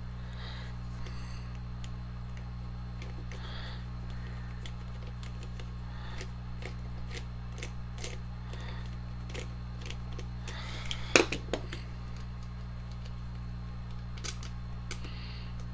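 Small scattered clicks and taps of metal parts as the chuck and gearbox end of a Milwaukee drill are turned and picked at by hand, with one louder knock about eleven seconds in. A steady low hum runs underneath.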